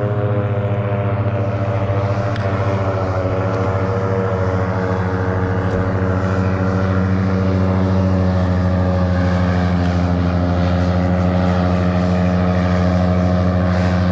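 Airboat's engine and aircraft-style propeller running steadily close by, throttled back, holding one even pitch.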